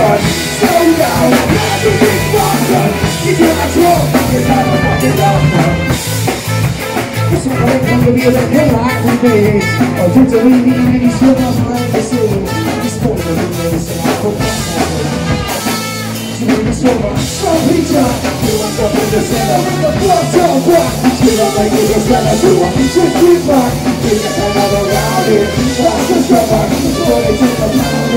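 Live rock band playing loud with electric guitar, bass guitar and drum kit, with a brief drop in level about halfway through.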